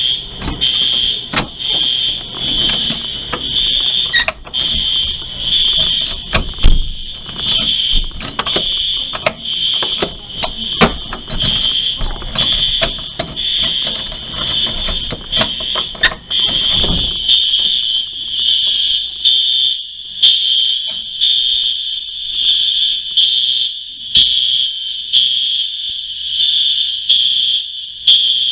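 Apartment building fire alarm sounding a high-pitched electronic tone that pulses about once every second and a quarter. Irregular knocks and clicks sound over it through the first half, then stop about seventeen seconds in.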